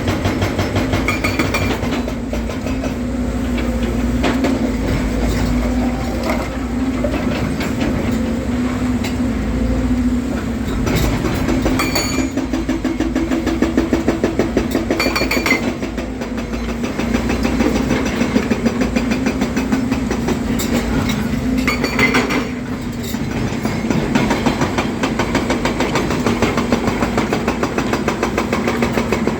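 Volvo EC300DL excavator's diesel engine running steadily with a low hum, its level dipping and rising again a few times as it works. A few sharp clanks and knocks are scattered through, around halfway and again later.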